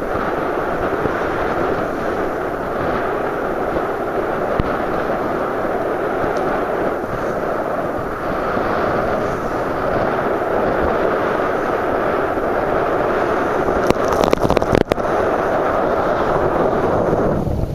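Wind buffeting the microphone on the deck of a sailing yacht under way, a loud steady rush mixed with the sea rushing past the hull. A few sharp knocks or clicks come about 14 seconds in.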